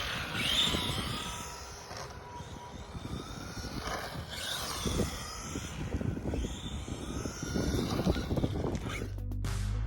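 Electric motor of a 1/14-scale Team Associated Reflex 14R Hoonicorn RC car whining up and down in pitch as it speeds up and slows around a track, with scattered knocks and rattles. Music comes in just before the end.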